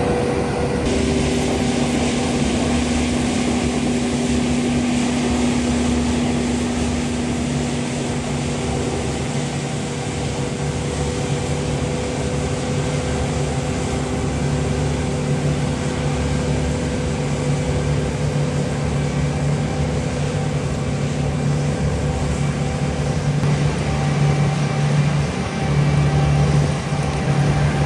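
Farm machinery engine running steadily with a low hum. Its pitch shifts slightly about a second in, and it grows a little louder near the end.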